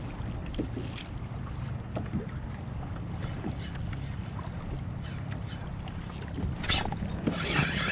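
Wind on the microphone and water moving around a kayak on open sea, with faint scattered clicks from a rod and spinning reel being worked. A short, louder rush of noise comes near the end.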